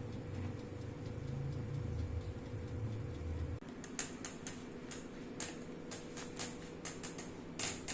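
A low steady hum that cuts off about three and a half seconds in, followed by irregular light clicks and taps.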